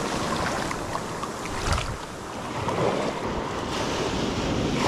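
Ocean surf washing up a sandy beach in a steady hiss of foam and water, with wind on the microphone.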